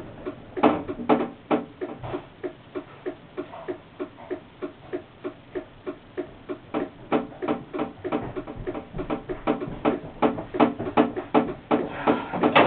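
Steady mechanical ticking in a standing tram's driver's cab, about three clicks a second.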